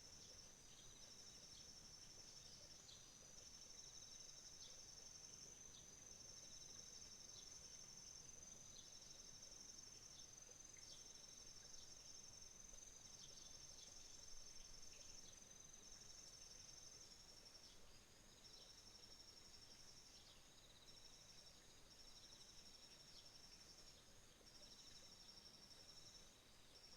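Autumn insects, crickets among them, trilling faintly in several steady, overlapping high-pitched trills, with many short high chirps scattered throughout.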